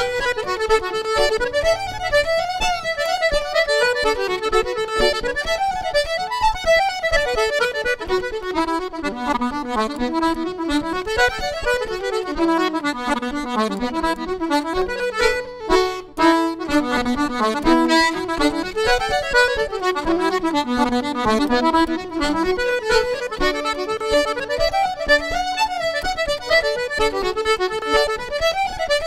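Irish traditional band playing a fast tune live, with fiddle and accordion carrying the melody in quick up-and-down runs over a stringed accompaniment. The music drops out for a moment about halfway through, then carries on.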